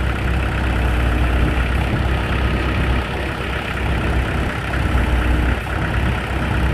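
Engine running steadily with a low hum, powering the hydraulics of a homemade hydraulic log splitter.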